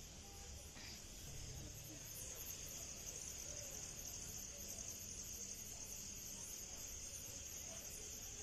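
Crickets chirping steadily at night: a faint, high, pulsing trill, joined about two seconds in by a higher chirp that repeats a few times a second.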